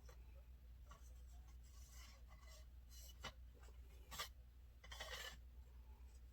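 Faint handling of a ring light stand being adjusted: a few light clicks and a brief scrape about five seconds in, over a low steady hum.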